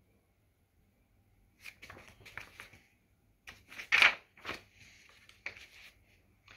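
Pages of a large picture book being turned by hand: paper rustling and flapping in several short bursts, the loudest about four seconds in.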